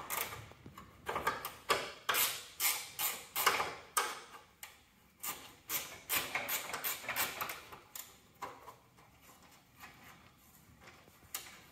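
Hand ratchet and socket working on the fender bolts: a run of short metallic clicks and knocks at an uneven pace, several a second at times. It thins out after about eight seconds, with one last click near the end.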